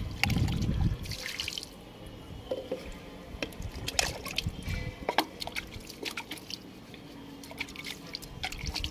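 Water being poured over a small clay pot as it is washed by hand, splashing onto a tiled floor. A louder pour runs for about the first second and a half, then come scattered drips and small splashes.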